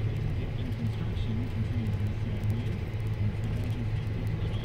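Vehicle engine running steadily while driving, a low rumble heard from inside the cab.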